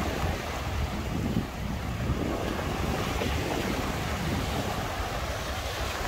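Baltic Sea surf washing onto the beach in a steady rush, with wind buffeting the microphone in a low, gusty rumble.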